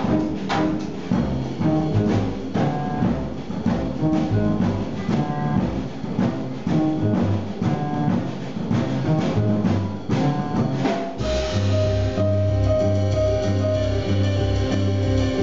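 Jazz trio playing live: double bass, drum kit with cymbals and piano. Busy drumming and running notes give way, about eleven seconds in, to a steady repeating low figure under held chords.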